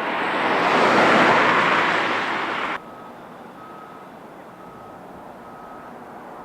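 A loud rushing roar swells and then cuts off abruptly about three seconds in. A quieter hiss follows, with several short electronic beeps about a second apart.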